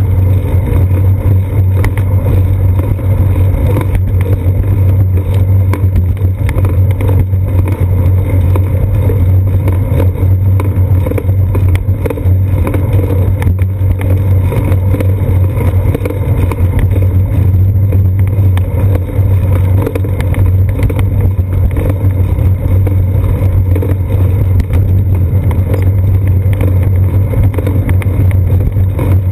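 Steady, loud low rumble of road vibration and wind picked up by a seat-post-mounted GoPro Hero 2 on a moving bicycle, with faint occasional clicks.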